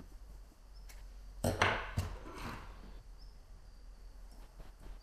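Light knocks and scraping of a hand file or awl working a finger hole in a dried cane flute body, with a louder burst of scraping and knocking about a second and a half in.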